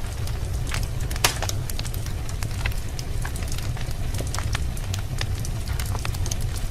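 Wood fire burning in a fireplace, crackling with frequent short pops and one louder pop about a second in, over a steady low rumble.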